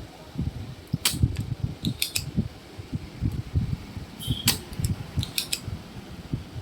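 Sharp clicks of a spring-loaded desoldering pump firing, a few times at uneven intervals, while the ICs are being desoldered from an amplifier board. Irregular low thumps and rumbling run underneath.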